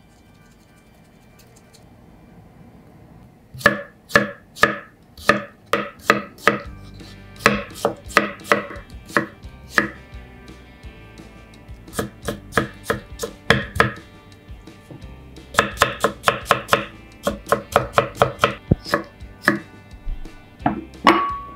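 Kitchen knife slicing a cucumber on a wooden cutting board: a series of sharp knife strikes against the board, about two to three a second, in runs with short pauses, starting a few seconds in.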